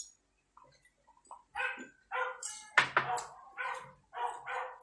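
A dog barking repeatedly: a run of about six barks beginning about a second and a half in.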